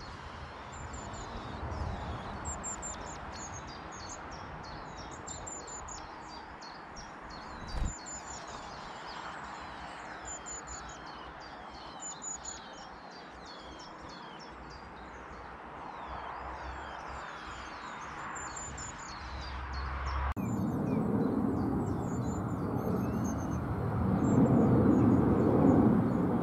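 Many rapid, high-pitched bird chirps come one after another, with a single thump about eight seconds in. After about twenty seconds the sound changes abruptly to wind rumbling on the microphone under fainter chirps, growing louder toward the end.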